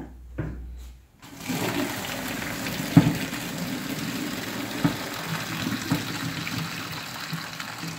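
Boiling water poured from a steel pot through a plastic colander into a stainless steel sink as boiled orange-peel segments are drained. A steady rush of water starts about a second in, with a sharp knock about three seconds in and a couple of lighter knocks later.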